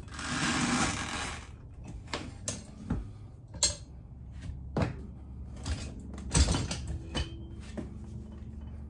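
Knocks and clanks of a manual lever-type bead breaker, its steel arm and shoe working against a motorcycle tire and its stand as the tire bead is pushed free of the rim. A scraping rush in the first second and a half, then scattered sharp knocks, the loudest about six and a half seconds in.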